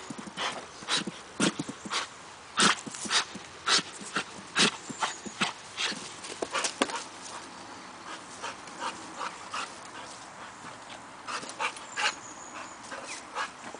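A bulldog-type dog (Brabanter bullebijter) giving short, sharp barks in quick, irregular succession as it lunges and jumps at a ball hung from a rope. The barks come thick for the first half and then thin out.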